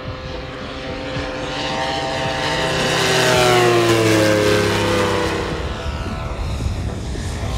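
Large-scale RC model warbird's piston engine and propeller making a low fly-by. The engine tone swells to its loudest about halfway through and drops in pitch as the plane passes.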